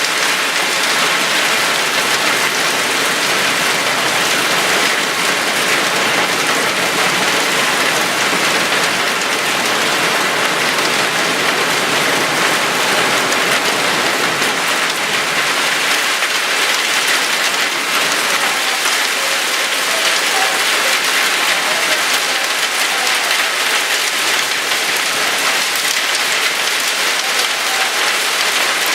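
Heavy rain and hail from a supercell thunderstorm pelting down in a dense, steady clatter of countless small impacts.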